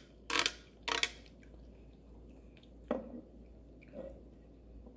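A knife blade scraped twice along a flat metal hand grater, clearing grated carrot off it. Two softer, duller knocks follow about three and four seconds in.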